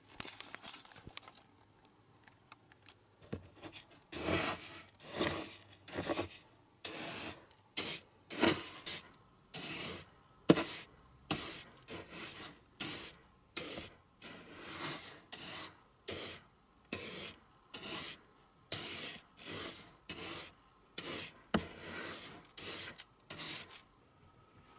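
Repeated rubbing and scraping strokes, about one a second, each short and rasping, starting a few seconds in and stopping shortly before the end.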